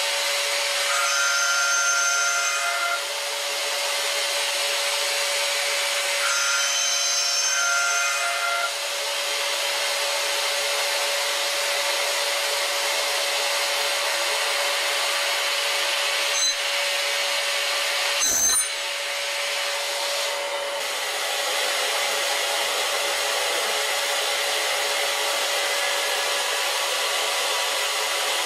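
CNC machining centre trochoidal-milling a titanium blisk with an end mill, cooled through the spindle with liquid nitrogen and MQL. It is a steady hiss with a steady spindle tone. Higher ringing cutting tones come in twice in the first nine seconds, and there is a single sharp knock about two-thirds of the way in.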